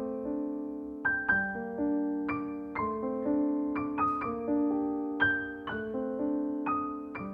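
Background piano music: a slow melody of single notes and chords, struck about twice a second, each ringing on and fading.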